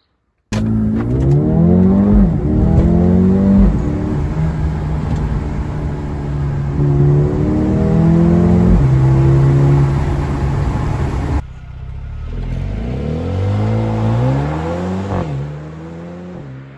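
Mercedes-AMG CLA 35's turbocharged four-cylinder engine accelerating hard through the stock exhaust, revs climbing and dropping back at each upshift. About eleven seconds in the sound breaks off and a second pull starts, climbing through more shifts before fading.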